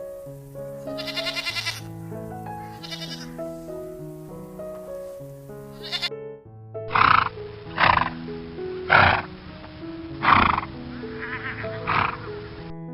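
Background music with stepping notes under farm animal calls. In the first few seconds there are two short, wavering calls; then, after a cut, five loud calls come about a second apart.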